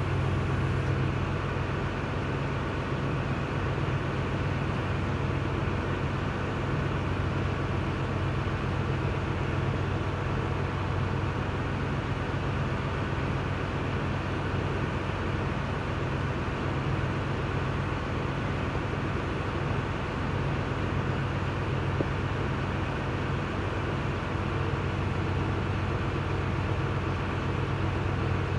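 Steady low machine drone with no change in pitch or level, and one short knock about three quarters of the way through.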